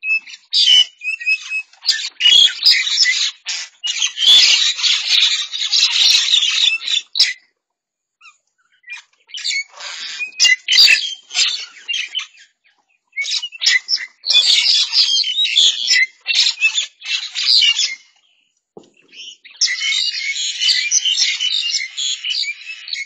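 A mixed flock of birds squawking and chattering loudly at one another while they squabble over food. The calling comes in dense bursts several seconds long, broken by brief pauses.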